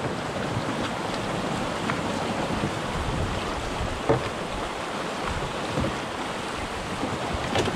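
Fast floodwater of a river in full flood rushing steadily, with a few light knocks.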